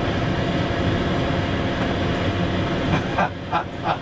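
Steady low hum of a parked tour bus, heard from inside the cabin, with three short sounds near the end.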